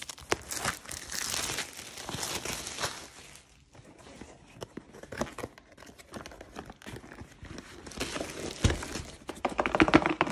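Plastic shrink-wrap being torn and crinkled off a long cardboard kit box, dense crackling for the first few seconds. After a short lull come scattered papery rustles and light knocks as the box flap is opened and the contents are slid out, with the loudest burst of rustling near the end.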